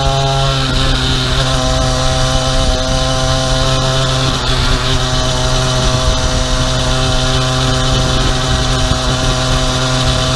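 50cc two-stroke pocket bike engine on a motorized bicycle running at a steady cruising speed. Its note holds steady, with a slight change in pitch about half a second in.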